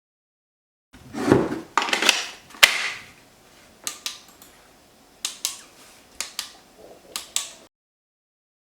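Hands handling a Makita DMR050 flashlight radio and tools during repair: a scraping rustle in the first couple of seconds, then a string of sharp clicks and knocks that stops about a second before the end.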